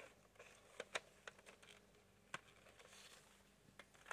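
Near silence broken by a few faint, sharp clicks and taps, about half a dozen spread out, from a plastic makeup palette being handled.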